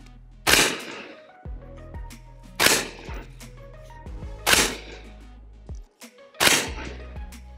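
Four suppressed shots, about two seconds apart, from a Daniel Defense V7P AR-15 pistol in 300 Blackout firing 220-grain subsonic rounds through a Gemtech ONE suppressor. Background music plays under the shots.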